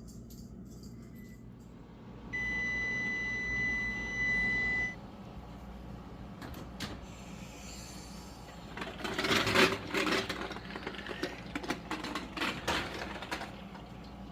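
An oven timer sounds one steady, high electronic beep for about two and a half seconds. Later come several seconds of clattering and knocking as the metal muffin tin of baked eggs is handled and taken out of the oven.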